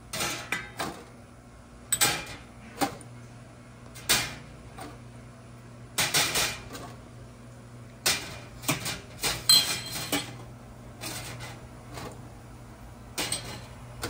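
Kitchenware clattering: irregular knocks and clinks of utensils against dishes and pots, coming every second or two, with a busier run about eight to ten seconds in.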